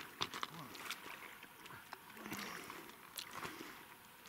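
River water lapping and splashing around an angler wading, with scattered small splashes and clicks over a faint running-water hiss.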